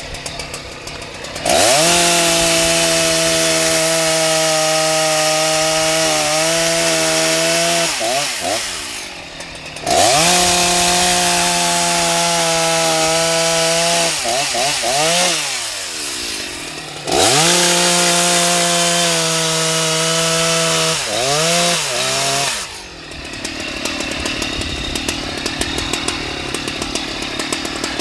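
Husqvarna 181 SE two-stroke chainsaw, its carburettor freshly adjusted, idling and then run up to full throttle three times in long bursts, each time the pitch wavering and dropping back down to idle. The owner judges that it sounds better.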